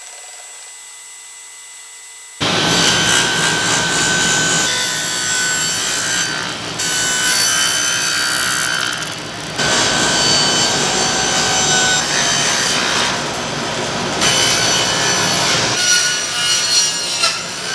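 Table saw running and cutting 3/4-inch Baltic birch plywood with the blade tilted for miter cuts. The loud sawing starts abruptly about two seconds in, a steady whine whose loudness shifts several times as the panels are fed through the blade.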